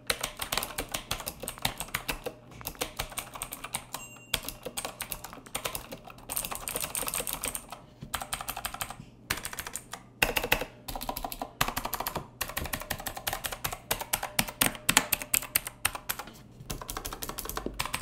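Performax Xargon mechanical keyboard with Otemu Blue switches being typed on quickly: a dense run of sharp, clicky keystrokes with a few brief pauses.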